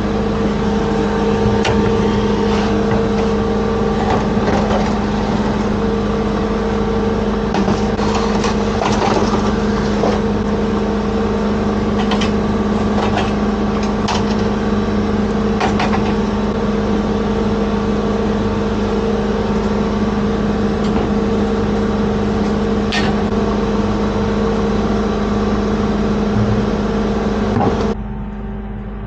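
An engine running at a steady, unchanging speed, with scattered knocks and scrapes over it, most of them in the middle of the stretch. The engine sound drops off suddenly near the end.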